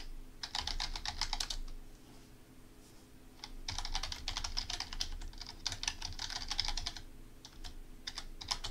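Typing on a computer keyboard: quick runs of key clicks, a pause of about a second and a half in between, then a few single keystrokes near the end.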